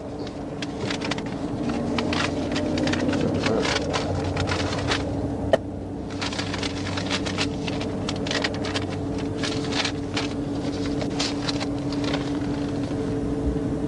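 Steady hum inside an idling patrol car, with irregular clicking and rustling over it and one sharp click about five and a half seconds in.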